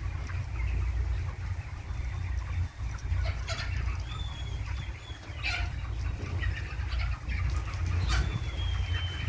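Chickens clucking and calling, with a few thin high peeps, over a steady low rumble.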